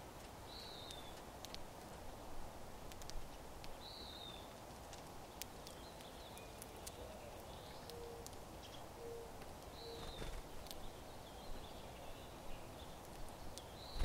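Faint short chirping calls of finches at a feeder, one every few seconds, over light scattered clicks of sunflower seeds being cracked. A few soft low notes sound in the background about halfway through.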